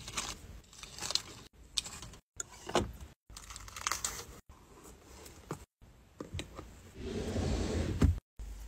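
Wrapped hard candies and their plastic wrappers crinkling and clicking as they are handled and dropped into a small zippered fabric pouch, in short bursts broken by brief dead-silent cuts. Near the end, a drawer slides open with a short rumble and stops with a sharp knock.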